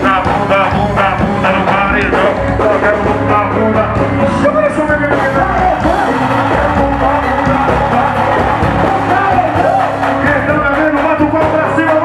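Live band music on stage: singing into microphones over percussion, drums and guitar, loud and steady throughout.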